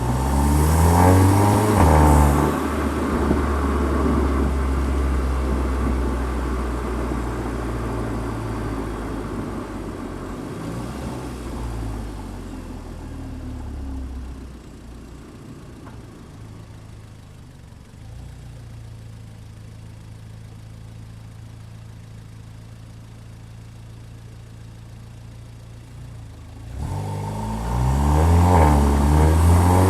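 Car engine under hard acceleration, revs climbing through the first couple of seconds, then settling to a steady drone that turns quieter about halfway. Near the end the revs climb again in a second hard pull. The sound is picked up close to the intake and the exhaust.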